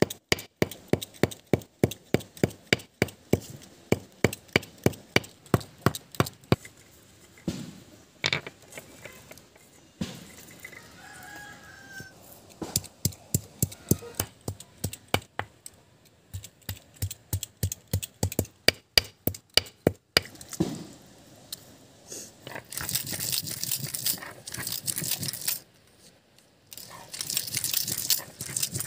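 A knife chopping vegetables on a cutting board in a steady rhythm of about three strokes a second, in two long runs. Near the end comes a loud, steady hiss.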